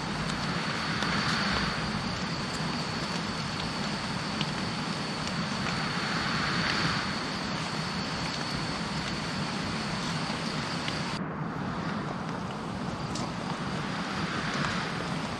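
Tropical forest ambience: a steady hiss with a continuous high-pitched insect drone that swells softly a few times.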